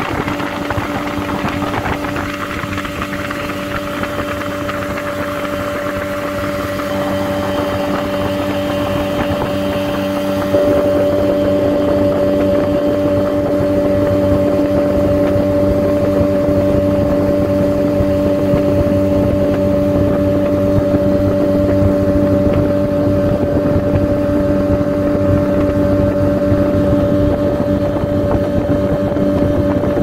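A small speedboat's engine running steadily under way, an even hum over a rush of wind and water, stepping up a little in loudness about ten seconds in.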